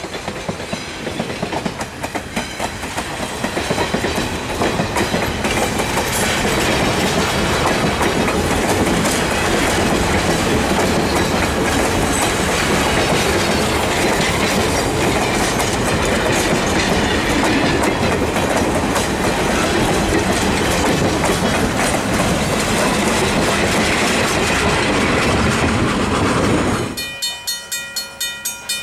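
Steel-wheeled passenger coaches of a steam excursion train rolling past close by, with a steady rumble and the clickety-clack of wheels over the rails. Near the end the rumble stops suddenly and gives way to a quieter sound: a steady pitched tone with a regular pulse.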